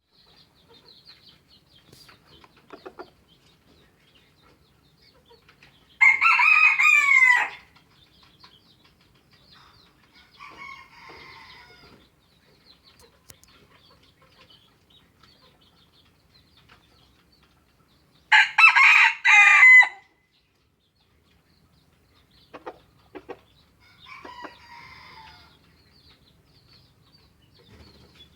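Asil × Kelso F1 gamecock crowing twice, each crow loud and about a second and a half long, about six and eighteen seconds in, with two fainter crows from another rooster in between.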